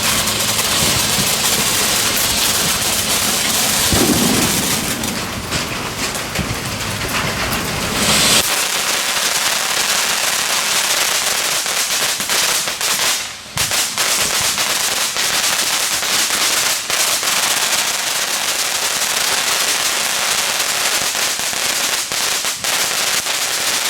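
Consumer firework going off with a dense, continuous crackling that lasts over twenty seconds, heavier and fuller for the first eight seconds, then stopping abruptly.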